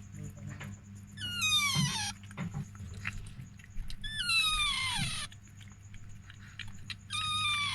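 Three high-pitched whimpering cries from a dog, each about a second long and falling in pitch, about a second in, about four seconds in and near the end.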